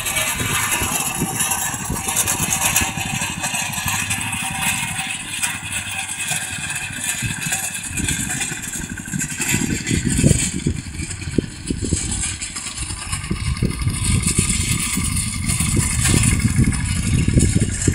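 Alfalfa mowing machine running while cutting: an engine firing steadily with mechanical clatter from the cutter. It grows louder and heavier from about eight seconds in.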